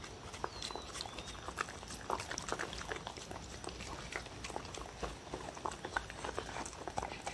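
Dog eating soupy food from a bowl close to the microphone: a steady stream of wet smacks, lapping and quick chewing clicks, several a second and irregular.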